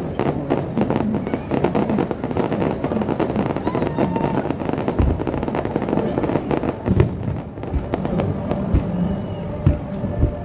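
Fireworks display: a dense, rapid crackle of many small bursts, with several deep booms in the second half.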